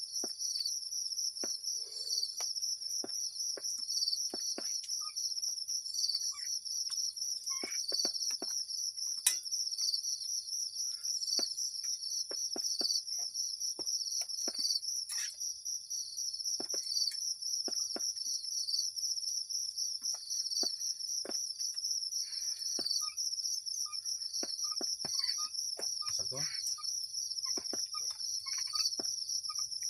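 A steady chorus of insects trilling high and pulsing, with scattered sharp clicks and ticks throughout.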